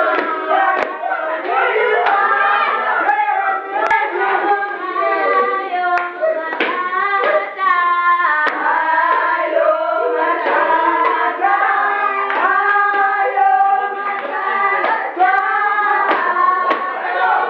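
A group of high-school students singing together without accompaniment, several voices at once, with hand claps here and there.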